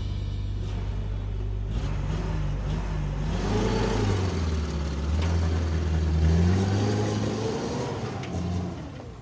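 Small pickup truck's engine, laden with teak logs, running steadily and then revving as it pulls away, its pitch rising and falling twice before fading near the end.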